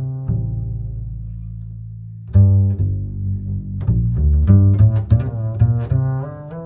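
Background music in a low register: a long held low note, then a quicker run of notes from about two seconds in.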